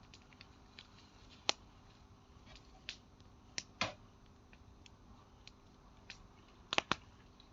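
Wood bonfire crackling: irregular sharp pops and snaps, with a close pair of louder pops near the end.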